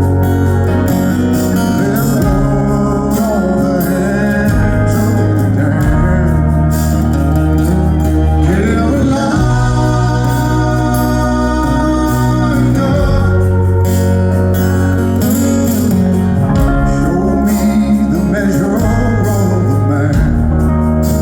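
A live rock band playing an instrumental passage with no singing: held bass notes under drums and cymbals, with electric guitar and organ.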